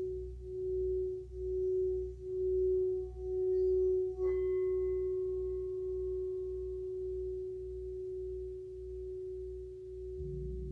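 Singing bowl sounding one steady tone that swells and fades about once a second as it is rimmed. About four seconds in comes a light strike, and the bowl then rings evenly with brighter overtones. Near the end a large hanging gong, struck softly with a padded mallet, adds a low hum.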